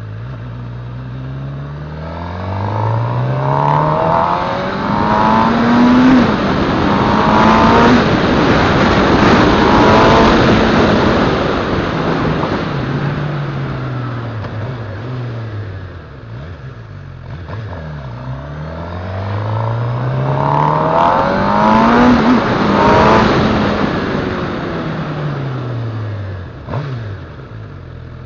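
Motorcycle engine accelerating through the gears, its pitch climbing and dropping back at each upshift, with wind rush loudest at speed. It then slows with falling pitch, accelerates through the gears again about two-thirds of the way in, and eases off near the end.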